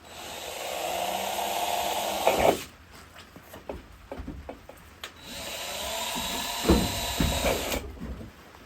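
Power drill driving screws into steel roofing sheets: two runs of about two and a half seconds each, each ending in a few sharp clatters, with small clicks between them.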